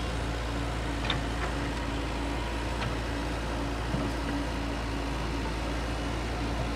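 Komatsu PC78US excavator's diesel engine running steadily at idle, a constant low hum with a couple of faint knocks.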